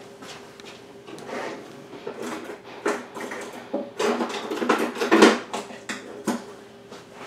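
Off-camera rummaging in a kitchen drawer or cupboard: irregular clicks, knocks and rattles of utensils and cookware being moved about. The clatter is busiest and loudest about four to five seconds in.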